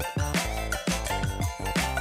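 Background music with a steady beat, drums and bass.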